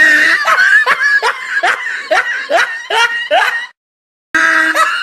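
High-pitched laughter: a run of quick 'ha' syllables, each dropping in pitch, about three a second. It breaks off briefly about four seconds in, then starts again.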